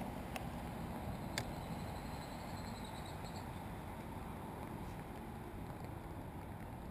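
Steady patter of light rain falling on the lake and on an umbrella hat just above the microphone. Two faint clicks come in the first second and a half.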